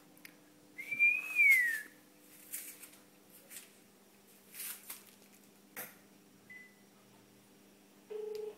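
An Indian ringneck parakeet gives one loud, clear whistle about a second long, rising slightly and then gliding down, followed by a few short noisy rustles and one brief faint chirp. Near the end a telephone ringback tone starts.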